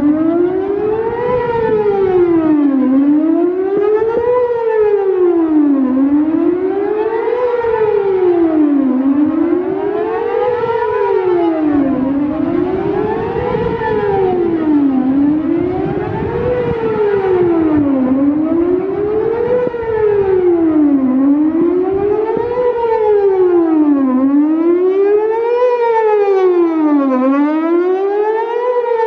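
Whelen WPS-4008 electronic outdoor warning siren sounding the Best Possible Protection test tone: a steady, even wail whose pitch rises and falls about once every three to three and a half seconds, without much punch.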